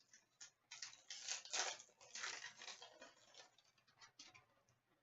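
Faint rustling and sliding of trading cards being handled, a run of short, scratchy scrapes that is loudest between about one and three seconds in.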